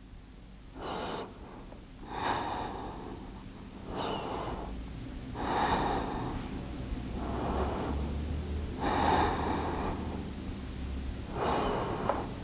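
A person breathing deeply and slowly, in and out, heard close on the microphone: about seven separate breath sounds, the paced breathing of a held yoga pose.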